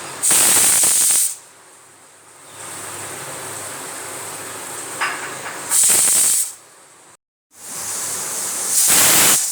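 Pressure cooker's weighted whistle valve blowing off steam: three loud, high hissing blasts, each under a second long, with a softer steady hiss of escaping steam between them.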